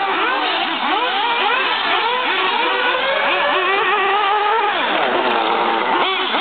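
Engines of several 1/8-scale off-road radio-controlled buggies revving up and down as they lap the track. Their high-pitched notes overlap and keep rising and falling.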